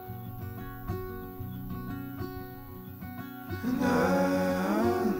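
Background music: a song with acoustic guitar playing, and a singing voice coming in about two-thirds of the way through.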